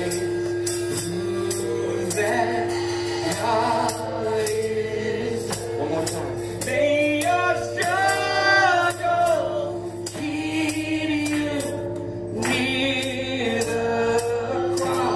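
Live gospel singing by a men's vocal group with band accompaniment, sustained chords and percussion keeping a steady beat.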